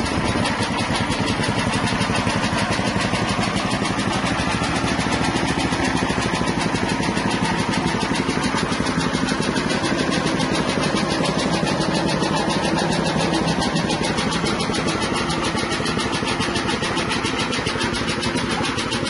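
Small single-cylinder petrol engine on a soybean dehulling machine, running steadily with a rapid, even pulse.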